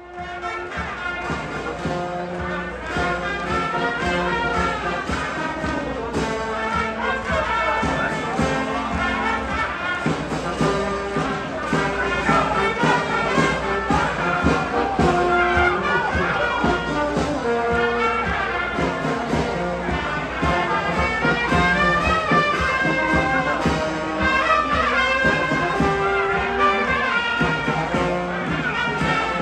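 Brass band playing, sustained melody notes over a steady lower line; the music starts abruptly out of silence at the outset.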